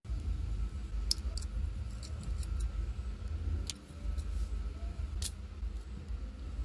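Small metal parts of a gas valve assembly being handled: a few sharp separate clicks and taps, the loudest about five seconds in, over a steady low rumble.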